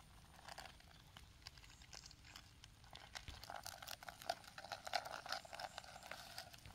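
Faint rustling and crinkling of dry leaf litter being handled, with scattered small crackles that grow busier about halfway through.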